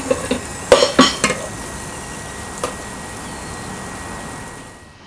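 Plastic-and-metal basket of a Philips Airfryer clattering as it is handled and pulled out, with a few sharp knocks about a second in, followed by a steady hiss that fades out just before the end.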